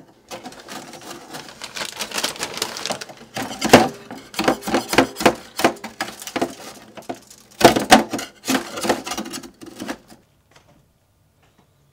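Thin metal spatula scraping under cookies on a metal baking sheet: a quick run of scrapes, taps and clatters, loudest about four seconds in and again around eight seconds. It stops about ten seconds in.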